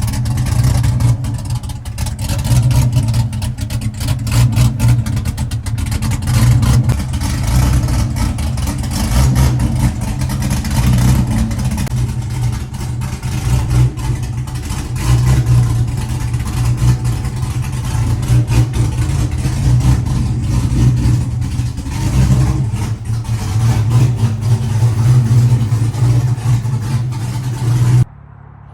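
A car engine running at idle, loud and steady with a pulsing low note, then cutting off abruptly near the end.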